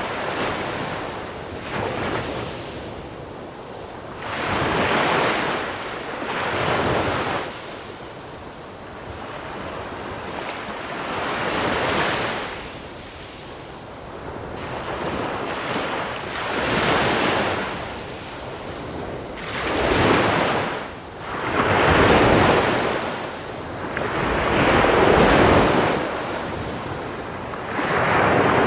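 Small sea waves breaking and washing over a shore of small pebbles, surging and ebbing every few seconds, some swells louder than others.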